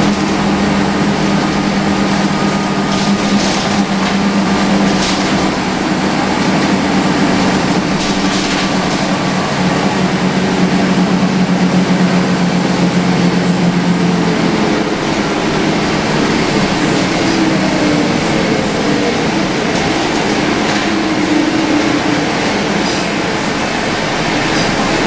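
Inside a MAN 11.220 midi bus under way: the diesel engine and ZF automatic gearbox, nearly covered by the very loud air-conditioning blowing. A steady drone fades about fourteen seconds in, and a faint rising whine follows, with a few body rattles.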